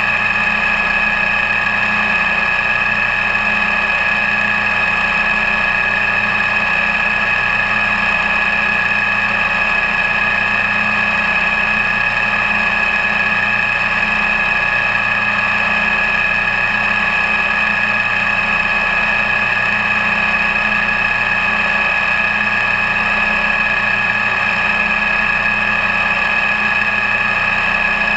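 CNC milling machine's end mill cutting an aluminum soft jaw under flood coolant: a steady machining sound with a high-pitched whine throughout.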